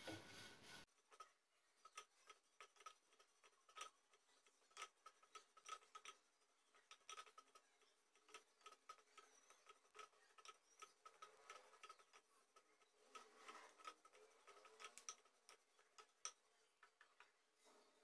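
Near silence with faint, scattered ticks and scrapes as a wooden spatula stirs curry leaves roasting in a nonstick kadai.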